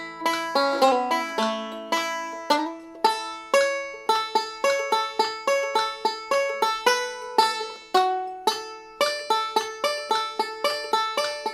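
Five-string resonator banjo played solo with fingerpicks at a slow, even practice tempo: a steady run of single plucked notes up the neck mixed with open strings, each note ringing out.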